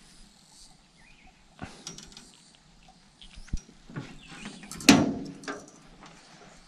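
Handling noise of a freshly caught tilapia being unhooked on a wooden boat deck: scattered light clicks and knocks, with one louder sudden knock-and-rustle about five seconds in.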